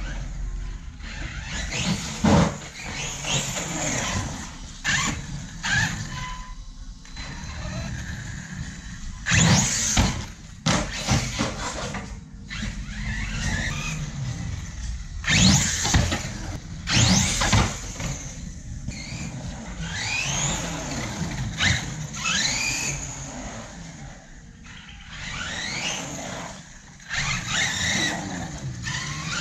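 Electric motor of a Hobao MTX radio-controlled monster truck running on 8S, whining up in pitch in repeated bursts of hard acceleration. Its tyres squeal and scrabble on concrete, with several loud bursts of wheelspin.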